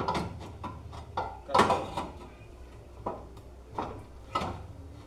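Metal clanks and knocks as steel parts of a water-well drilling machine are handled and set down, about six separate hits with the loudest about a second and a half in.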